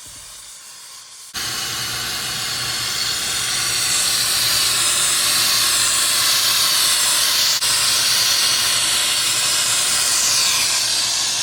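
Loud steady hiss of pressurized gas escaping. It starts suddenly about a second in and dips briefly past the middle.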